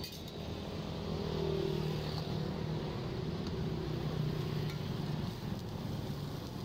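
Low engine hum, like a motor vehicle running close by, swelling over a few seconds and then easing, over street background noise.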